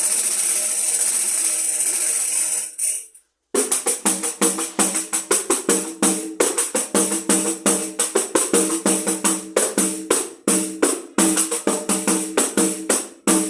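Tambourine jingles shaken in a fast, continuous rattle imitating a rattlesnake's rattle. It cuts off suddenly about three seconds in, and after a short silence the tambourine is struck in a quick, steady rhythm.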